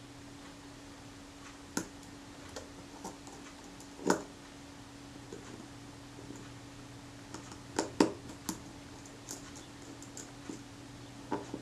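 Small sharp clicks and taps of a jeweller's screwdriver and tiny screws and washers being worked out of a camera shutter's metal mechanism plate. The loudest clicks come about four and eight seconds in, over a steady low hum.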